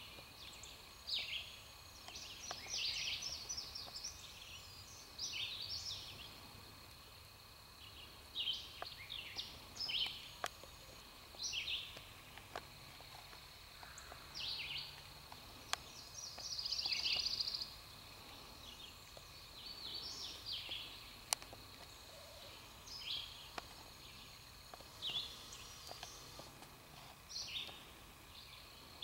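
Songbirds singing in short repeated phrases, a new phrase every second or two, over a faint steady high-pitched tone. A single sharp click cuts in about two-thirds of the way through.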